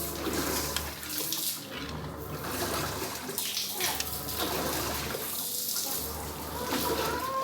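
Water running and splashing, with a low hum that cuts in and out every second or two.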